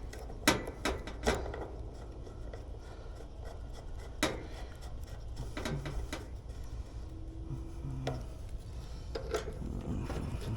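A few separate metallic clicks and clinks of hand tools and fittings being handled, over a steady low hum.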